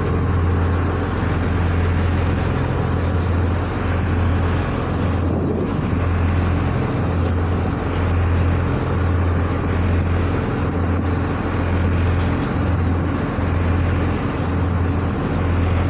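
Excavator's diesel engine running steadily, a constant low hum under broad mechanical noise.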